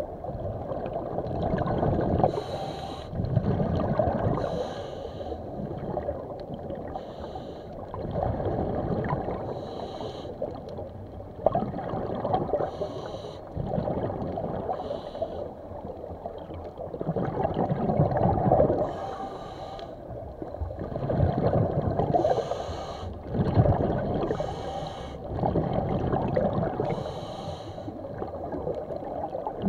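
A swimmer breathing underwater, with a short hissing breath about every two to three seconds over a muffled sloshing of water.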